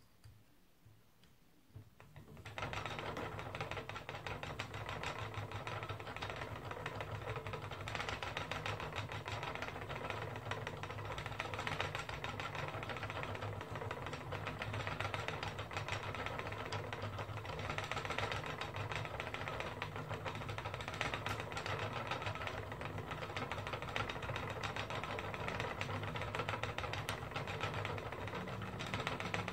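Wooden spinning wheel running as yarn is spun: a steady mechanical sound with a low hum and fast, fine clicking, starting about two and a half seconds in.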